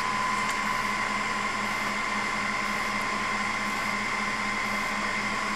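A steady machine hum and hiss with thin, unchanging high whines, like a fan or electronics running, with no change throughout.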